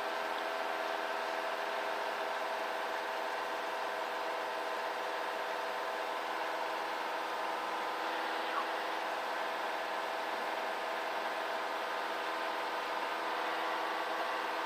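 Cessna 172 Skyhawk's four-cylinder piston engine and propeller running steadily under climb power, heard in the cockpit as an even, thin drone with little deep bass.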